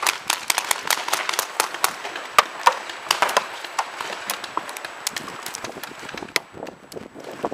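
Paintball markers firing from several players at once: sharp pops in quick, irregular strings, several a second, overlapping.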